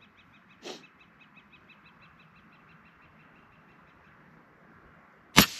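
A single precision rifle shot near the end, very loud and sharp, its report rolling on and fading across open ground. Before it there is a faint, steady high chirping of about six a second.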